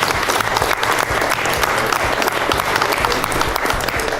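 Crowd applauding, a dense patter of many hands clapping that thins out near the end.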